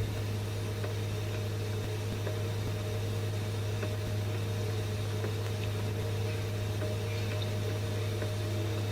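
Steady low electrical hum with an even background hiss, with no change in level.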